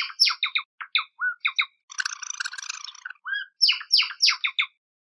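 Java sparrow calling: a quick series of sharp, downward-sliding chips, a dense burst of rapid twittering about two seconds in, then another run of sharp chips that stops shortly before the end.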